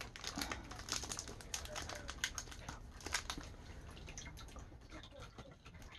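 Plastic chocolate-bar wrapper crinkling and rustling as it is handled, a run of irregular soft crackles, with a faint whisper partway through.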